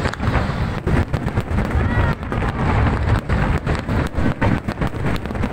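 Fireworks going off in rapid crackling bangs one after another, with people's voices underneath.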